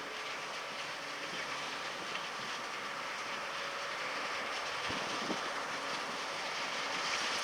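A John Deere S680 combine running steadily as it harvests corn: a continuous even mechanical drone with a faint steady hum under it.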